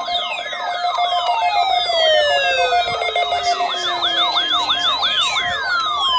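Electronic sirens layered together: a fast yelping siren cycling about three times a second, a steady pulsing tone, and several long falling whistle-like glides.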